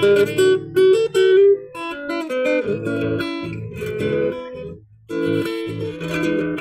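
Solo acoustic guitar playing an instrumental passage of a folk song, a mix of plucked melody notes and strums, with a brief pause just before five seconds in.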